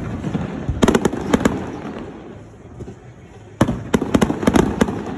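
Fireworks display going off: loud bangs of bursting shells, each followed by a quick string of sharp cracks. One cluster comes about a second in, and a bigger one starts with a loud bang just past the middle and crackles on until near the end.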